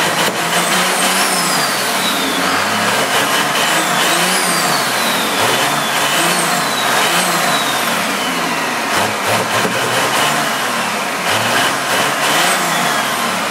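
Cummins diesel with twin P-pump injection pumps, revved up and down over and over by hand throttle at the pumps. A high turbo whistle climbs with each rev and falls slowly between them.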